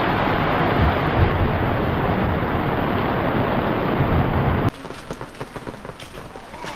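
Heavy rain pouring down, a loud steady rush that cuts off suddenly about two thirds of the way through, leaving a softer patter of rain.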